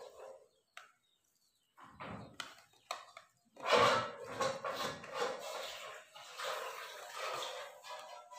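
Hands rinsing bilimbi (belimbing wuluh) flowers in water: irregular splashing and swishing, sparse at first about two seconds in, then busier and continuous from about four seconds on.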